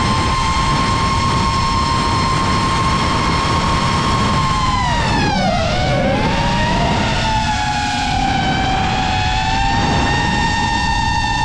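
FPV quadcopter's brushless motors and propellers whining at a high steady pitch over a rush of wind. About five seconds in, the motors slow and the whine drops in pitch, then speeds back up within a couple of seconds and holds steady again.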